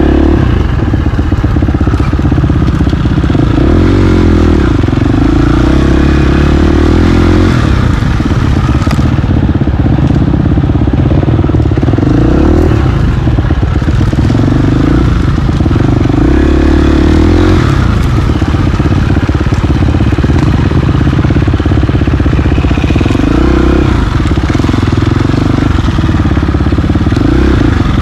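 Onboard sound of a KTM 350 XC-F four-stroke dirt bike engine riding single-track trail. The engine note rises and falls repeatedly with the throttle.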